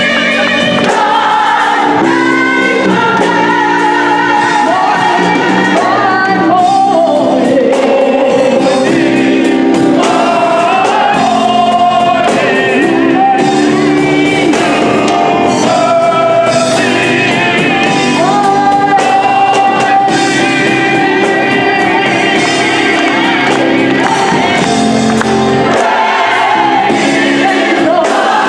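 Gospel choir singing with a lead soloist at the microphone, backed by an electric bass guitar.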